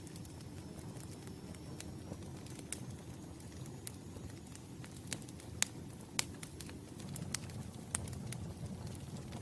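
Wood fire burning: the wood crackles with scattered sharp pops, two louder ones just past the middle, over a low steady rumble of the flames.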